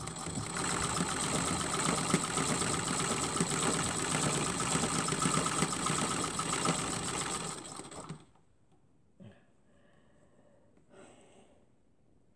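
Sewing machine stitching steadily at speed, free-motion quilting through a thick quilt; it runs for about eight seconds and then stops abruptly, followed by a couple of faint soft taps.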